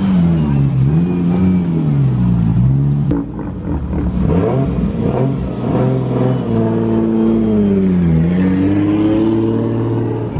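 Car engine being revved, its pitch falling and climbing again several times, with the biggest dip and climb near the end.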